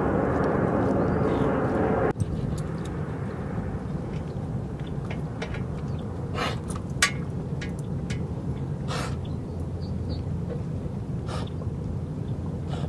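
Steady low outdoor rumble with a few scattered short clicks. A fuller, louder layer of noise in the first two seconds cuts off abruptly.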